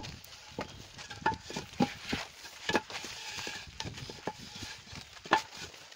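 White masonry blocks being lifted and set down on stacks: irregular knocks, clacks and scrapes of block against block, the loudest knock about five seconds in.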